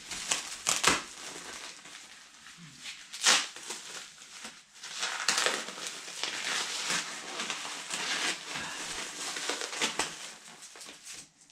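Protective packaging being pulled and torn off a new mountain bike: continuous rustling and crinkling, with a few louder sharp rips.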